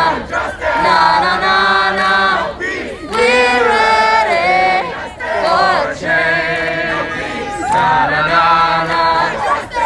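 Many voices singing a song together in long held, choir-like notes.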